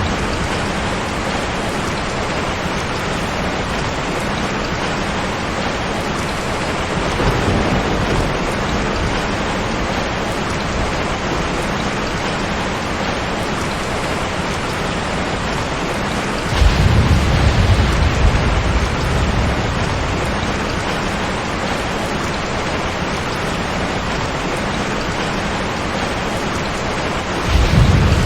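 Steady heavy rain with rolls of thunder. A soft low rumble comes about a quarter of the way in, a louder one a little past halfway that slowly fades, and another begins near the end.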